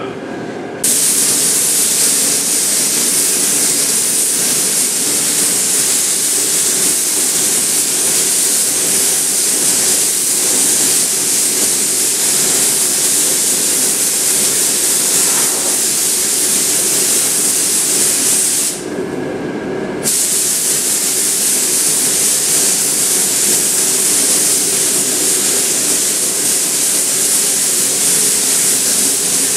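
Compressed-air paint spray gun spraying with a loud, steady hiss. The trigger is let off for about a second around two-thirds of the way through, then pulled again.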